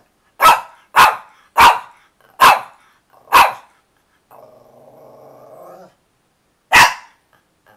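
A Shih Tzu barking sharply five times in quick succession, then giving a drawn-out low growl, then one more bark near the end: demand barking for treats.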